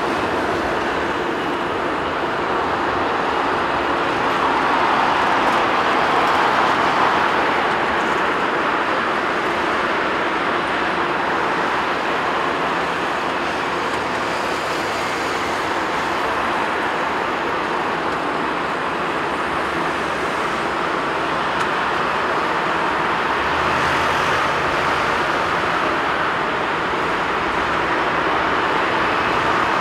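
Boeing 787 Dreamliner's Rolls-Royce Trent 1000 turbofans at low taxi thrust, a steady rushing jet noise that swells slightly about five seconds in.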